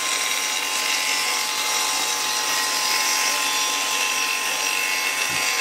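Bosch GTS 10 XC table saw running at speed while a thin wooden board is fed through the blade: a steady whine and hiss of the blade ripping wood.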